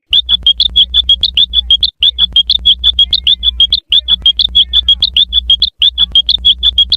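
Looped cartoon sound effect of rapid high chirps, about six or seven a second, with a low hum under them, repeating every two seconds or so with a brief break between loops. It is played very loud.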